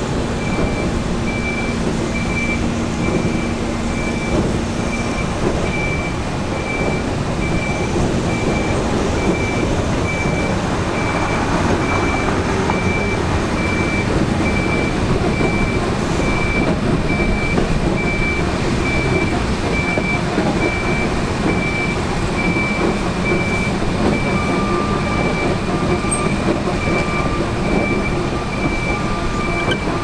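Railcar mover running while it moves an R77E electric locomotive along the track, its warning beeper sounding an even, high repeating beep. A second, lower-pitched beeper joins in near the end.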